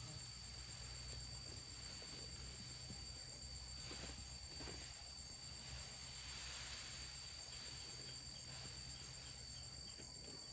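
Insects chirring steadily in the field, a faint unbroken drone at two high, constant pitches.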